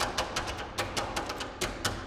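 Two guzheng (Chinese zithers) played as percussion: hands tapping and slapping the wooden bodies in a quick, uneven run of sharp knocks.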